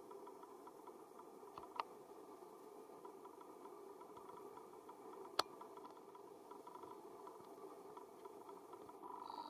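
Faint steady background noise of the outdoor recording, broken by two sharp clicks, a small one about two seconds in and a louder one just past five seconds. A brief high-pitched squeak begins near the end.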